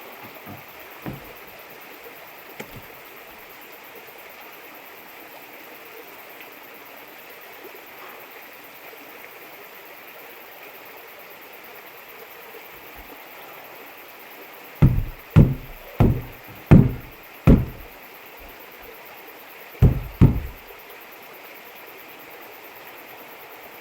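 Steady rushing hiss with a run of heavy, hollow thumps from about fifteen seconds in: five in quick succession, then two more close together a few seconds later, as the dented water tank is knocked.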